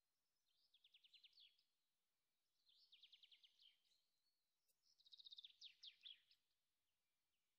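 Faint bird song: three short trilled phrases of rapid chirps, each about a second long, spaced about two seconds apart.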